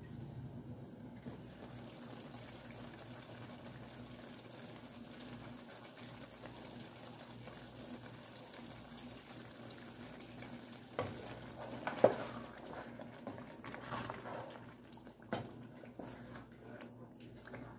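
Thick jollof rice sauce simmering in a pot under a steady low hum. From about eleven seconds in, a wooden spoon stirs it, with several sharp knocks against the pot, the loudest about twelve seconds in.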